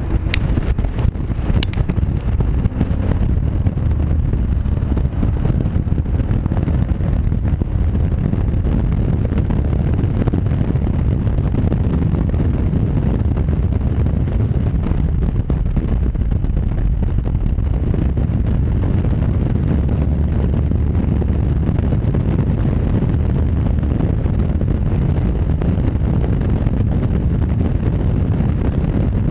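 Honda Varadero V-twin motorcycle running at a steady road speed, with a steady low engine drone and wind rushing over the on-board microphone.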